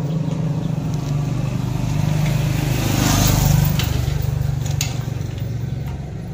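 A motor vehicle engine running nearby, growing louder to a peak about three seconds in and then fading as it passes. A few short metal clicks follow about five seconds in, from the gate's chain and padlock being handled.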